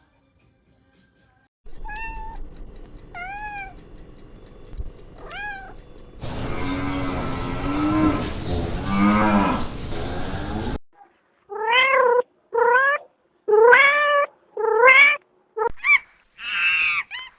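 A cat meowing: a run of short meows, each rising then falling in pitch, coming in separate bursts. In the middle a lower, longer call sounds over background noise.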